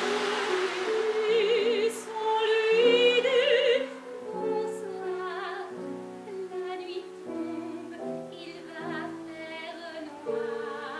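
A woman singing in a classical, operatic style with vibrato over a small instrumental accompaniment of held, changing notes.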